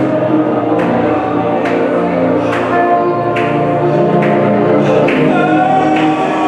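Many voices singing a gospel worship song together, holding long notes over a steady beat that strikes a little more often than once a second.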